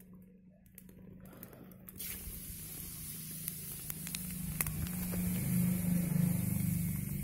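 Whole spices (black pepper, cumin, cardamom, cloves) dropped into hot oil in a kadai: a sudden hiss about two seconds in, then steady sizzling with occasional sharp pops. A low hum rises beneath it near the middle.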